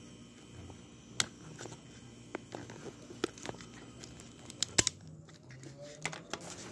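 Hands fumbling at a refrigerator's defrost timer to advance it into the defrost cycle: scattered clicks and rustling over a low hum, with a sharper click nearly five seconds in.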